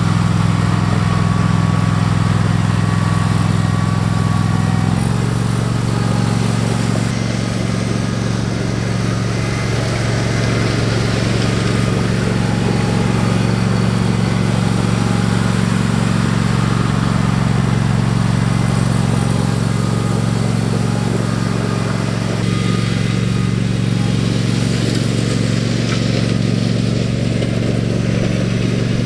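John Deere garden tractor engine running steadily under load, with a slight shift in its pitch about five seconds in.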